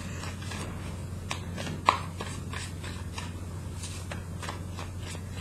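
A tarot deck being shuffled by hand: irregular soft clicks and taps of cards, with one sharper snap about two seconds in.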